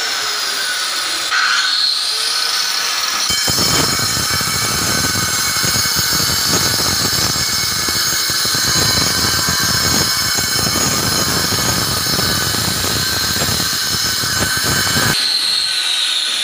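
Handheld electric grinder working on marble: it whines up to speed about a second in, bites into the stone about three seconds in with a harsh, gritty grinding that lasts some twelve seconds, then lifts off and runs free with a falling whine near the end.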